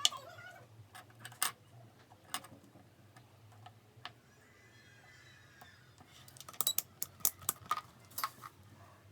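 Irregular sharp clicks and light knocks of small hard objects being handled: a few single clicks spaced a second or so apart, then a quick run of about eight in the last third.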